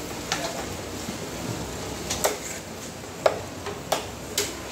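A large fish-cutting knife striking a wooden chopping block as it cuts through fish flesh: five sharp knocks, unevenly spaced.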